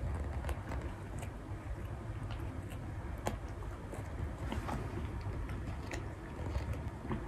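Domestic cat purring close to the microphone, a steady low rumble, with small scattered clicks as it licks and nibbles at its paw.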